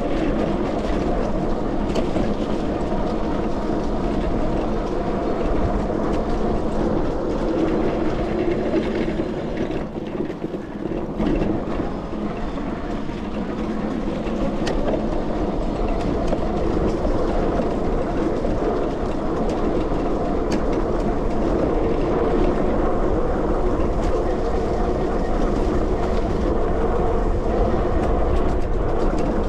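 Sondors MadMods electric moped ridden along a bumpy dirt trail: a steady rumbling, rattling ride noise from the bike and its tyres, easing briefly about ten seconds in.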